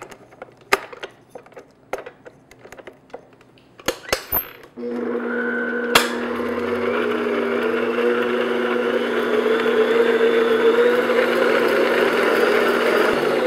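A few light clicks and knocks as the beater is fitted and the head of a stand mixer is lowered. About five seconds in, the mixer starts and runs steadily, its beater whipping chocolate frosting in a glass bowl, with one sharp knock shortly after it starts.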